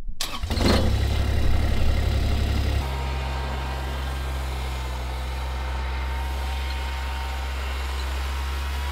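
Kubota side-by-side utility vehicle's engine running steadily with a low hum, louder for the first three seconds or so, then settling a little quieter.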